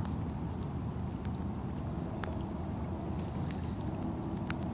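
Rain falling on a river's surface: a steady hiss of drops with scattered sharp ticks, two of them stronger about two and four and a half seconds in, over a heavy low rumble.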